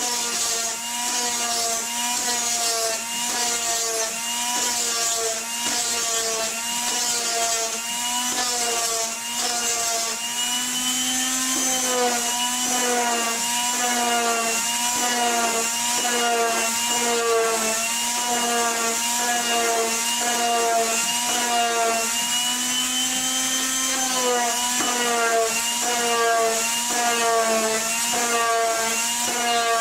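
An electric power tool running steadily on wood, its pitch dipping and recovering in a regular back-and-forth rhythm, with a rubbing stroke about one and a half times a second.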